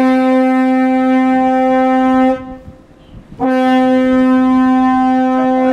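Ship's horn giving two long blasts of one steady note, each about two seconds, with a short gap between them: a horn salute to a passing tall ship.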